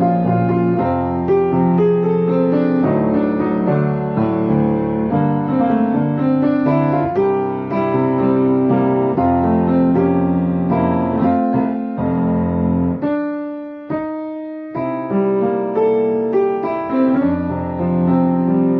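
Background piano music, gentle and steady, with a brief pause on a few held notes about three-quarters of the way through.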